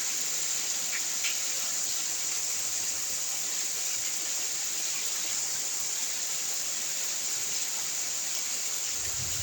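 Rain falling steadily as an even hiss, with a couple of faint ticks about a second in.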